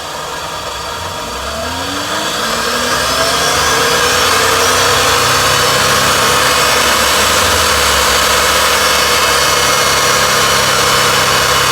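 Car engine revving up over the first few seconds, then held steady at about 4000 rpm with the accelerator pedal kept at a constant position for a sound level reading.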